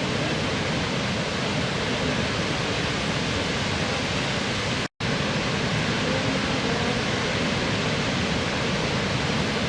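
Waterfall, a steady rush of falling water. It cuts out completely for a split second about five seconds in.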